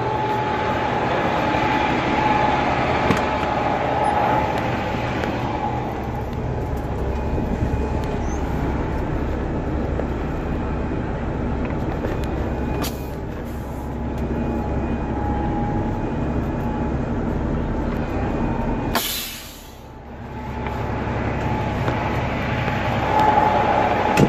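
Heavy-duty tow truck's diesel engine running steadily with a constant whine over its low hum. About nineteen seconds in there is a short, sharp hiss, and the sound is briefly quieter after it.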